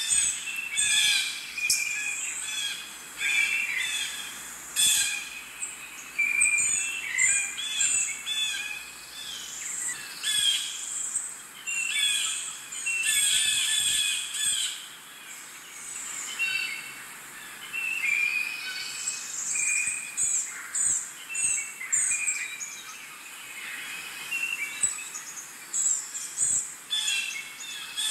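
Several birds chirping and calling over one another: a steady run of short, high chirps and trills.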